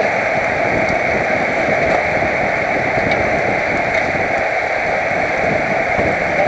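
Steady rush of wind over a helmet-mounted camera's microphone while riding a road bike at speed.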